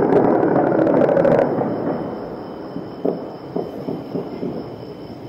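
Distant heavy weapons fire: a rolling rumble with several sharp reports, the loudest about three seconds in, slowly fading. The tail of a music sting runs over the first second and a half.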